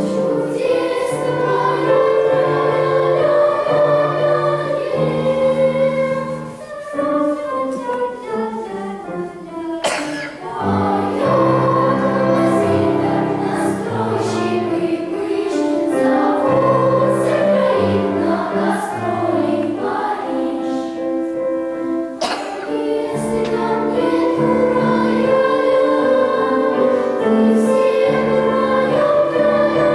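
Children's choir singing a song, with a briefly softer passage about a quarter of the way through.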